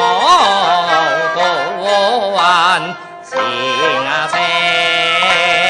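Teochew opera singing: a male voice sings a wavering, ornamented melodic line over traditional Chinese instrumental accompaniment, breaking off briefly a little past halfway before going on.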